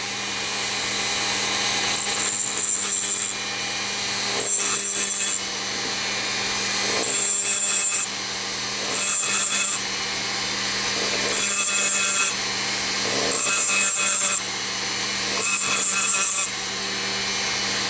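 Small rotary tool with a grinding bit running steadily, deburring the inner edges of a Muncie 4-speed synchronizer slider. The bit is worked along the metal in repeated short passes, about one every two seconds, each adding a hissing grind over the motor's hum.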